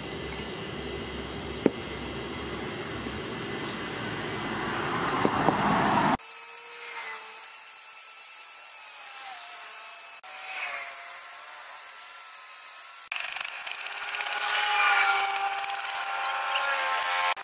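A single sharp knock near the start, then from about six seconds in an angle grinder with a sanding disc running with a steady whine as it sands a wooden axe handle.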